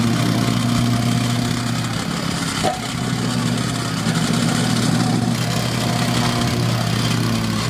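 Belle vibrating plate compactor's small petrol engine running steadily at working speed as the plate compacts a fresh patch of asphalt pellets, with a brief dip in the sound about two and a half seconds in.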